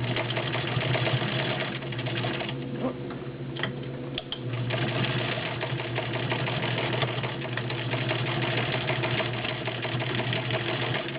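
Class 15 clone straight-stitch sewing machine with an all-metal build and a 3/4 amp motor, stitching through the thick seams of a folded denim jeans pocket. The stitching eases off with a few clicks about two and a half seconds in, then runs steadily again.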